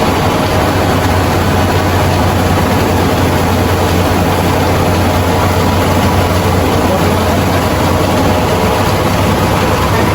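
Rice milling machine running steadily: a loud, constant machine drone with a low hum.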